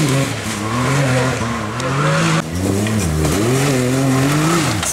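Side-by-side buggy's engine revving hard as it drives through deep mud. The engine note rises and drops several times, with a sharp dip about two and a half seconds in.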